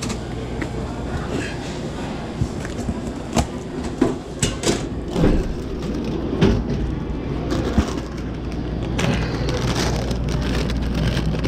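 Snack packages and boxes being handled while a vending machine is restocked: scattered knocks, taps and rustles, clustered in the middle and latter part, over a steady low hum.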